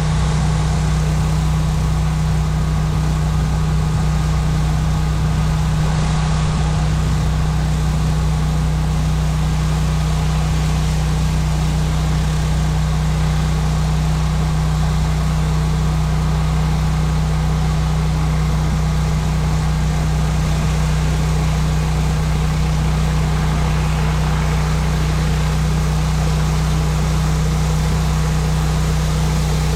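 Pressure washer's engine running steadily, a constant low drone, with the hiss of the high-pressure water spray over it.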